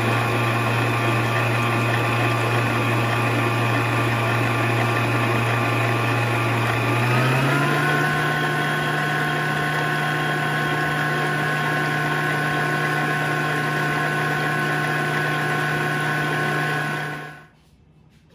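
Electric hand mixer running steadily as it beats milk and cream. It steps up to a higher speed about seven seconds in, then switches off near the end.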